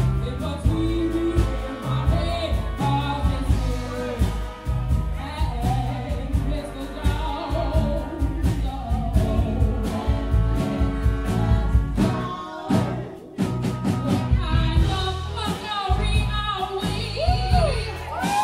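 A woman singing a melody with band accompaniment, with bass and drums under the voice; the music briefly thins out about two-thirds of the way through.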